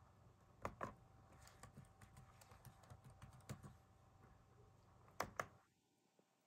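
Faint key presses on a computer keyboard, typing a six-digit code, followed by two sharper clicks about five seconds in; then the sound cuts out suddenly.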